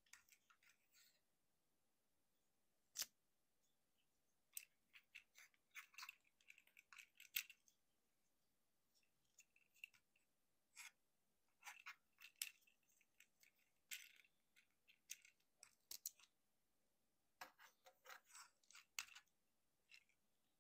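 Plastic clicks, snaps and light scraping from a Transformers Legacy United Voyager Class Motormaster action figure being transformed by hand, its parts folded and pushed into place. The sounds come in scattered groups of quick clicks, with a single sharp snap about three seconds in.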